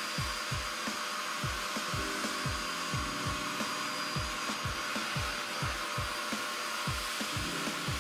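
Background music with a deep bass beat, its thumps dropping in pitch two or three times a second. Under it runs the steady rushing of a Bissell SpotClean portable carpet extractor sucking water up through its clear nozzle from the carpet.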